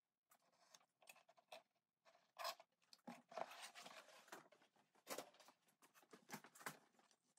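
Faint, sped-up leather-working sounds at a workbench: a quick run of short clicks, scrapes and rustles as a knife, steel ruler and cut leather are handled and set down, busiest from about three to five seconds in.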